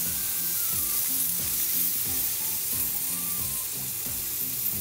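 Meat sizzling on a hot griddle pan over a portable gas stove, a steady high hiss, with background music playing underneath.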